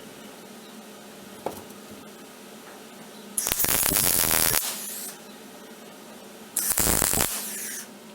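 Electric welder striking two short tack welds on light-gauge angle iron, the first about a second long and the second a little shorter, a few seconds apart, over a steady background hum.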